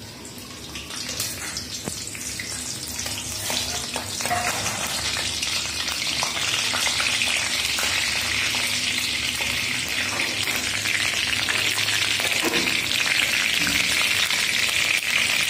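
Green chillies sizzling in hot oil in a kadhai, stirred with a spatula; the frying hiss grows steadily louder.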